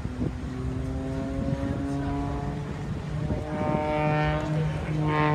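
Sustained low chords of music over loudspeakers, several held tones sounding together. The chord shifts to a higher pitch about three and a half seconds in and grows louder.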